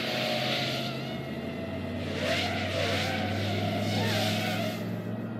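FPV racing quadcopters' brushless motors whining as they fly the course, the pitch wavering up and down with the throttle and swelling louder in the middle.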